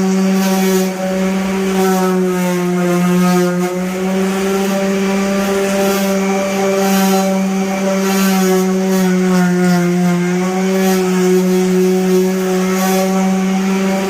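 Power sander running steadily while sanding down a car's old paint for a repaint, a constant motor hum with a rough scrubbing hiss, its pitch sagging slightly a couple of times.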